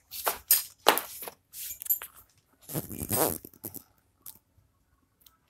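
Several short bursts of rustling and scraping, close to the microphone, dying away in the last second or so.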